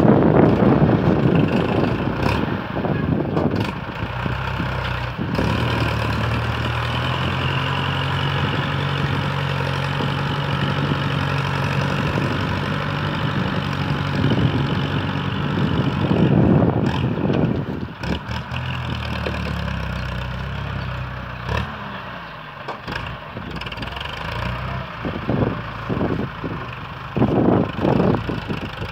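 Ford farm tractor engine running steadily, its pitch shifting about two-thirds of the way through. Wind gusts buffet the microphone at the start and again just past the middle.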